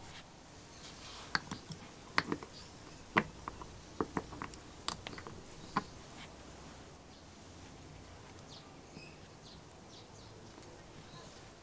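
Small sharp clicks and taps of metal parts being handled in an electric drill's gearbox housing, as a gear on its shaft is worked by hand. The clicks come in a scattered run over the first six seconds or so, then thin out to faint ticks.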